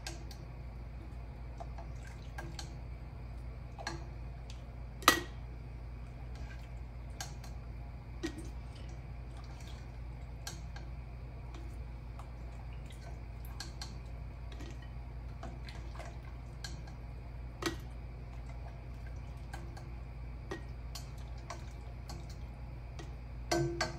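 Scattered light clicks and taps as a slotted spoon scoops chicken pieces out of a stainless stockpot and drops them through a plastic funnel into glass canning jars, the sharpest tap about five seconds in. A steady low hum runs underneath.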